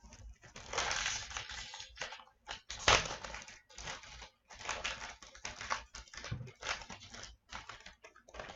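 Hockey card pack wrapper being torn open and crinkled in the hands: a run of irregular crackling rustles, sharpest about three seconds in.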